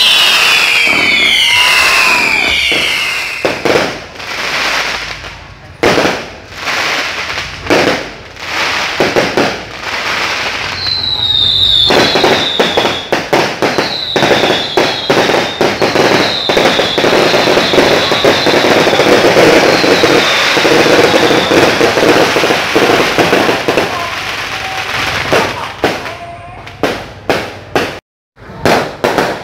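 Fireworks going off: whistling rockets with falling whistles at the start, then a rapid run of sharp bangs and a long spell of dense crackling with short falling whistles every second or two, and more scattered bangs near the end.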